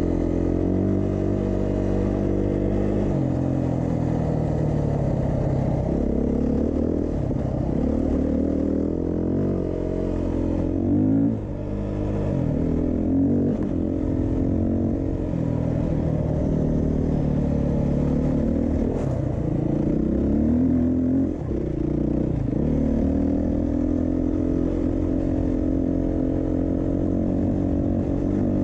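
Beta 390 RR-S single-cylinder four-stroke dual-sport motorcycle engine running under way, its pitch rising and falling with the throttle, with two brief dips in level partway through.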